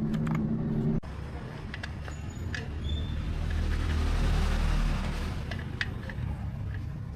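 An engine running with a steady hum that cuts off abruptly about a second in, followed by a low rumble that swells and then fades, with scattered clicks and taps.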